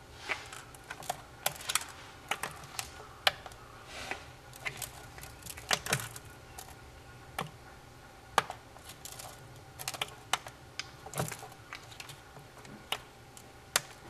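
Irregular sharp clicks and taps, some in quick pairs, as Japanese common toads (azuma hikigaeru) snap up food worms from a plastic feeding tray.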